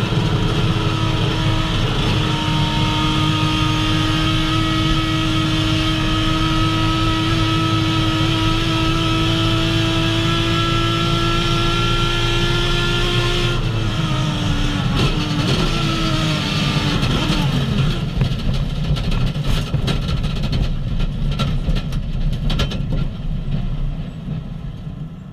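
Touring race car's engine heard from on board, held at steady high revs with its pitch creeping slowly up. About fourteen seconds in the pitch wavers and falls as the revs drop, and a run of sharp knocks and clatter follows near the end.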